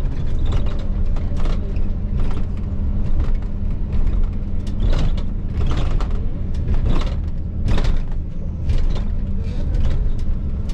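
Steady low rumble and hum inside the cabin of a Boeing 787 Dreamliner as it taxis, with brief sharp clicks and knocks scattered through.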